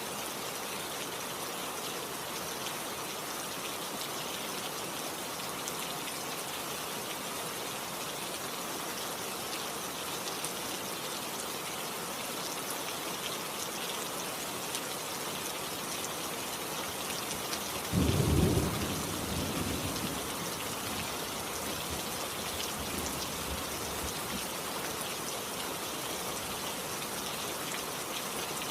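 Steady rain falling, with a single clap of thunder about eighteen seconds in that rumbles low and fades over a couple of seconds.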